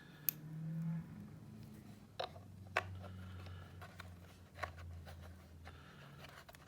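Scattered light clicks and taps of small screws and a polymer holster being handled as the screws are set in by hand, over a low steady hum.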